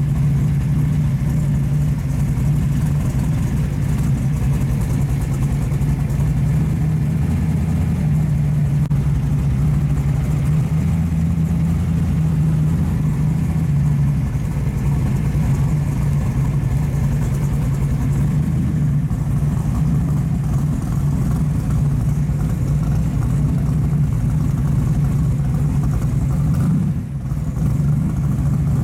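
Supercharged hot-rod V8 running at low speed and idling, heard from inside the car: a steady, loud low drone.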